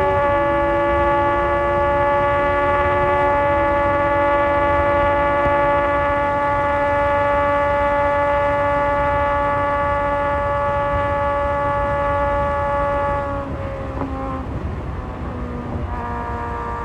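Inline-four sport motorcycle engines held at high revs, a steady high-pitched drone over wind rush. About 13 seconds in the throttle closes, the drone drops away, and the engine note comes back lower near the end.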